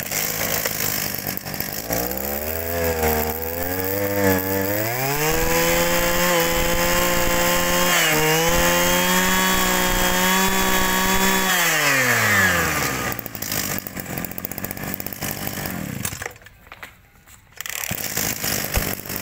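Kioritz two-stroke brush cutter engine running, revved up from idle a few seconds in and held at high speed with a brief dip, then dropping back to idle about twelve seconds in.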